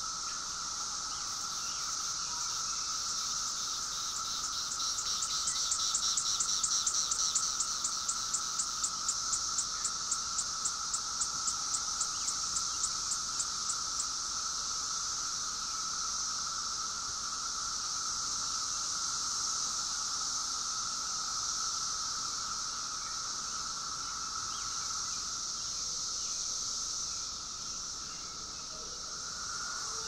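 Chorus of Brood X periodical cicadas: a steady high-pitched drone with a lower whine beneath it. About five seconds in, a run of rapid, evenly spaced pulsing ticks joins for some ten seconds.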